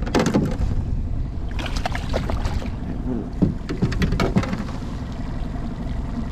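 A hooked pike thrashing and splashing at the water's surface as it is drawn in, in three bouts of splashing over a steady low rumble.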